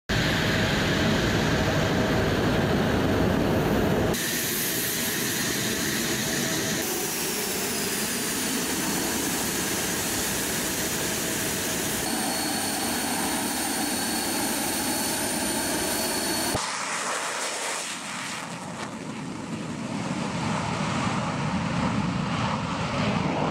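Military fighter jet engine noise across several cut shots: a loud steady jet rush, a high whine falling in pitch about seven seconds in, and a steady high whine from about twelve to sixteen seconds. After a cut the jet sound is quieter, then builds toward the end as a jet flies past.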